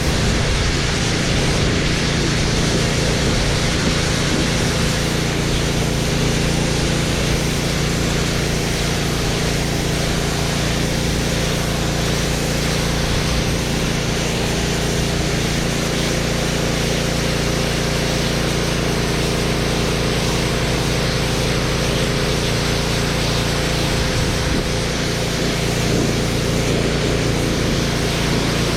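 Gas-engine pressure washer running steadily under load, with the hiss of its high-pressure water spray on concrete.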